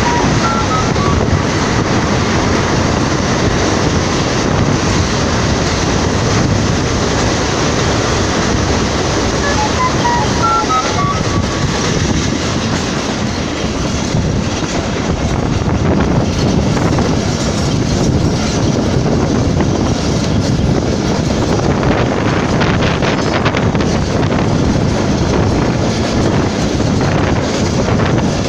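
Pakistan Railways passenger train running at speed, heard from a coach window: a steady rumble of wheels on the rails with a clickety-clack of the rail joints.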